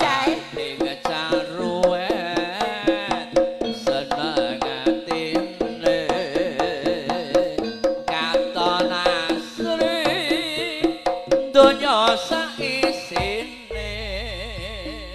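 Live jaranan music: a Javanese gamelan-style ensemble with quick hand-drum (kendang) patterns under a wavering lead melody. Near the end the drumming drops out and the wavering melody carries on alone over a low hum.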